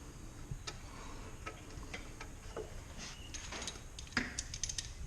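Light metallic clicks and clinks of small brake fittings being handled: a brake-line banjo bolt and copper washers being fitted to a caliper. The clicks are scattered at first and come thicker over the last couple of seconds.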